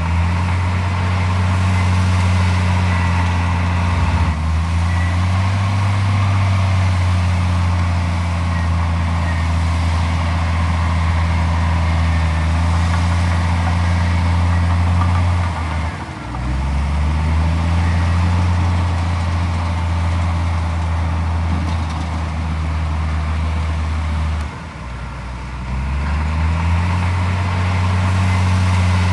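Heavy diesel engine running hard and steady, its pitch dropping briefly about 4, 16 and 25 seconds in and climbing back up each time.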